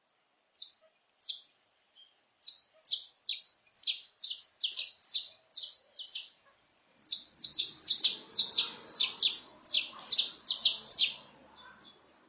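Male saffron finch (canário-da-terra) singing: a series of sharp, high chirps, each dropping in pitch. The notes start spaced out and quicken into a rapid run in the second half, then stop about a second before the end.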